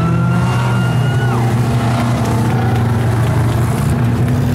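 Pony stock race cars' engines running in a steady drone as they pass on the track. A high whistle sounds for about the first second and a half, rising at its start and falling away at its end.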